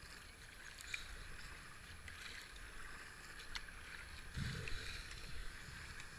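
Kayak paddle strokes dipping into a slow river, the blades swishing and splashing softly in an uneven rhythm, with a few light knocks. A brief low thump comes about four and a half seconds in.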